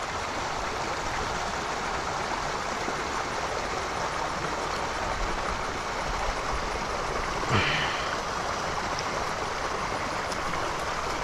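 Steady rush of water running in a small, shallow creek, with a brief louder sound about two-thirds of the way through.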